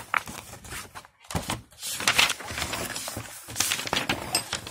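Sheets of handwritten paper being lifted and turned over, an irregular rustling.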